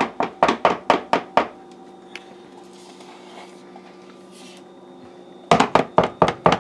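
A knife knocking and scraping against a plastic tub of vanilla frosting as the frosting is scooped into a mixing bowl. The knocks come in quick runs of about five a second: one at the start lasting about a second and a half, and another starting about five and a half seconds in.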